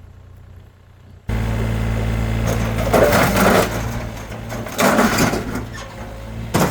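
Excavator's diesel engine running steadily, starting abruptly about a second in, with loud bursts of crunching, scraping metal twice as the old barbecue is crushed.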